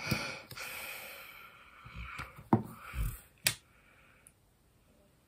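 A breathy exhale, then a few sharp clicks and knocks from small makeup items being handled, one about two and a half seconds in and another about a second later.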